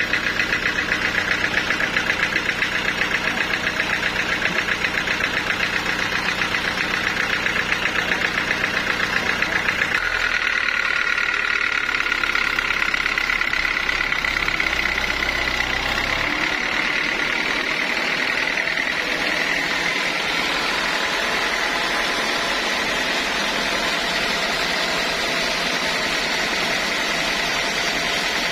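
Sawmill saw machinery running with a fast, even pulsing hum. About ten seconds in, the low rumble drops away and a steady high whine takes over.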